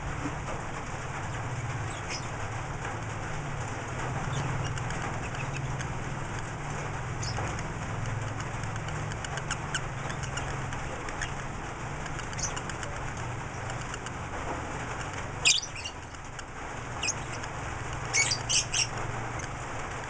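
Lovebirds giving short, shrill chirps: a few faint ones scattered through, then louder sharp calls, one about three-quarters of the way in and a quick run of three or four near the end, over a steady low hum.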